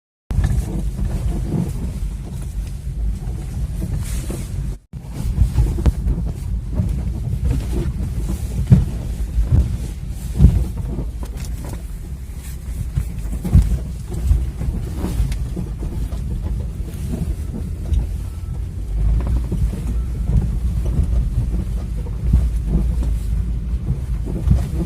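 Car driving over an uneven surface, with heavy low road and wind rumble and short repeated creaks and knocks: a harsh squeaking, grinding noise from the front suspension, which the owner took for worn front control-arm bushings. The sound cuts out briefly just before 5 s where one recording ends and the next begins.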